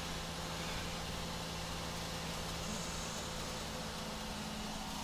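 Cab noise of a Volvo 730 semi truck cruising on the highway: steady engine drone and road noise. A second, slightly higher hum joins about halfway through.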